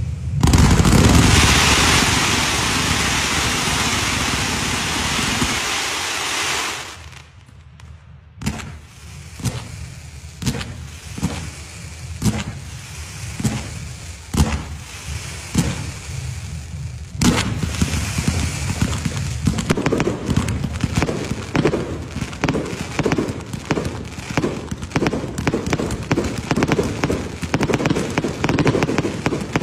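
Fireworks display. It opens with a steady rushing hiss for several seconds, then goes briefly quiet, then gives a string of single sharp bangs about once a second. From a little past halfway it turns into dense crackling with rapid bangs.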